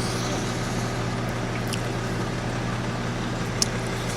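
Steady low hum of an idling vehicle close by, with one sharp click about three and a half seconds in.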